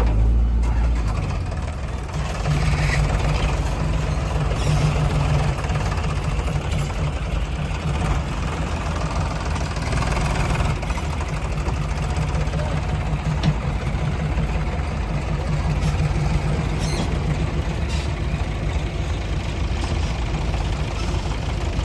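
Heavy diesel engine running steadily at idle; a deep low rumble drops away about a second in, and the engine keeps running evenly after it.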